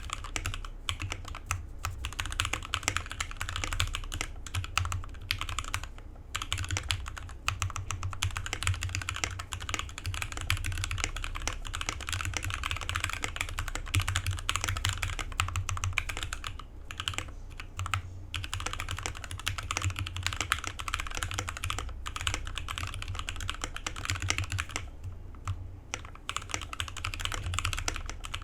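Continuous fast typing on a mechanical keyboard with lubed and filmed Gateron Yellow linear switches, Durock V2 stabilizers and foam-modded case, keys bottoming out in a steady stream of clicks with a few short pauses.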